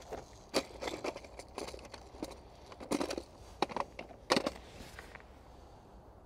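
Irregular rustling, clicks and knocks from fishing tackle being handled, dying away about five seconds in.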